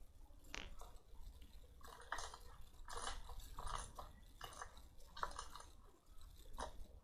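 Slime being squished and pressed, giving a run of short wet clicks and pops at irregular intervals, starting about two seconds in.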